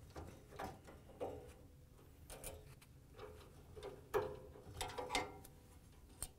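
Phillips screwdriver backing out the tight screws that fix the gas line to an LG dryer's gas burner valve: a string of irregular metallic clicks and scrapes as the bit turns and reseats in the screw heads.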